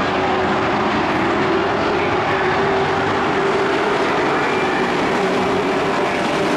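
A pack of pickup race trucks running together around an oval track, their engines making a steady, unbroken drone as they pass.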